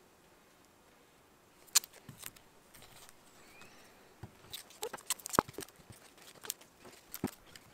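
Apples being set down on a wooden tabletop and handled: scattered sharp knocks and taps, starting about two seconds in and irregular after that.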